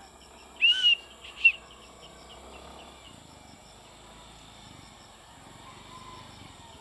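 Two short high-pitched calls about a second in, then a faint low hum of a distant motor scooter approaching along the road.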